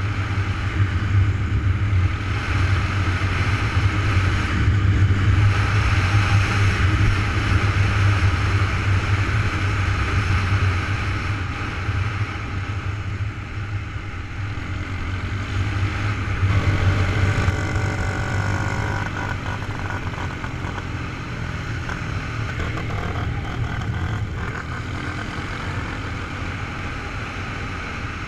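Quad-bike (ATV) engine running steadily as it is ridden, heard from a helmet-mounted camera, with rushing noise over it. The engine note rises and falls briefly about two-thirds of the way through.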